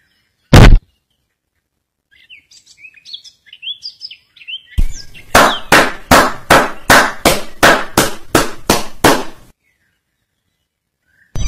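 One loud impact sound effect, then a stretch of high, bird-like chirps, then a rapid run of loud hits, about four a second, lasting some four seconds.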